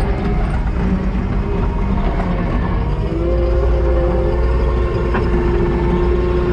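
Heavy equipment diesel engine running steadily under work, with a low rumble and a steady whine that grows stronger about three seconds in.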